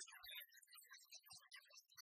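Near silence, with only faint scattered traces of sound.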